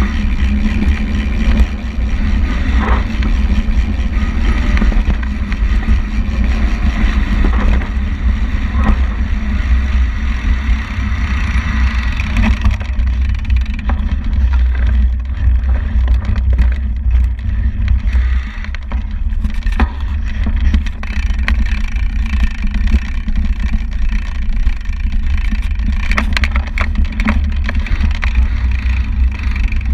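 Wind buffeting the microphone of a camera on a fast-moving mountain bike, over the rumble of tyres on a dirt trail, with frequent clicks and knocks from the bike rattling over rough ground, thicker in the second half.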